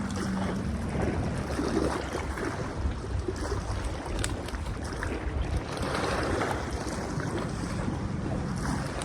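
Wind buffeting the microphone over water lapping and washing, a steady rough rumble with a few faint ticks.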